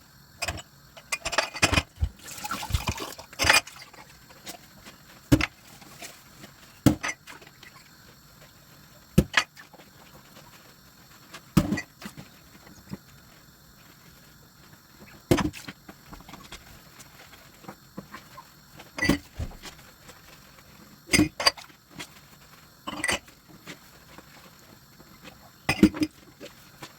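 Dishware being handled at a kitchen sink, with the tap off: a flurry of knocks and a short rush of water early on, then single sharp knocks and clinks every couple of seconds as dishes and utensils are set down.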